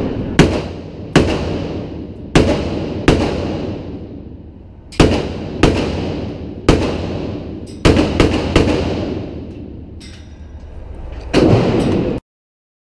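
AR-15 rifle fired shot by shot at an indoor range, about ten sharp cracks spaced half a second to two seconds apart, each ringing off the concrete walls. The sound cuts off abruptly near the end.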